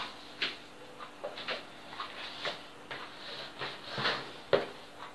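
Irregular soft clicks and knocks of a plastic mixing bowl being handled and tilted on a table as hands pull risen brioche dough out of it, with one sharper knock near the end.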